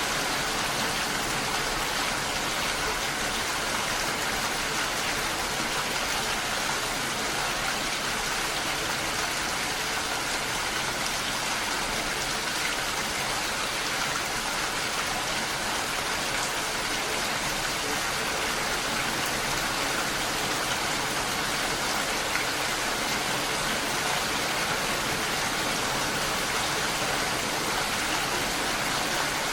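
Steady, unbroken rainfall, an even hiss of rain with no pauses or distinct drops standing out.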